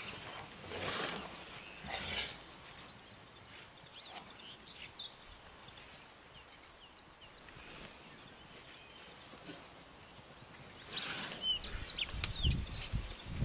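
Wild birds chirping and calling with short rising and falling whistles over a steady outdoor hiss. Brief rustling noise swells about a second in and again near the end, the last one with a low rumble.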